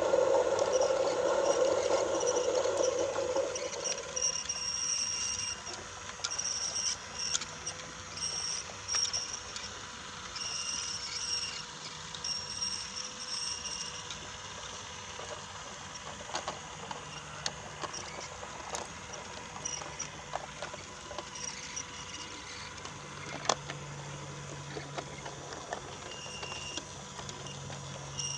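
Battery-powered Brio toy train running on wooden track: a steady high electric motor whine with gear whirring that keeps switching on and off, and scattered light clicks of the wheels over the track joints. The sound is louder for the first few seconds, then settles.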